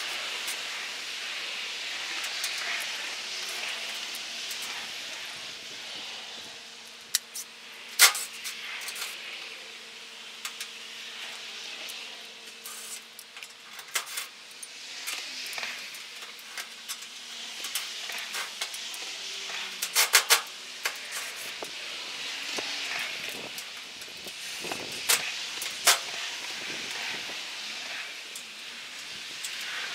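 Steady background hiss with a faint hum through the first dozen seconds, broken by a handful of sharp knocks, including a quick cluster of them about twenty seconds in.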